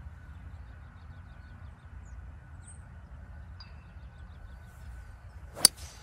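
A 5-wood fairway wood striking a golf ball: one sharp, crisp impact near the end, a solid, well-struck shot.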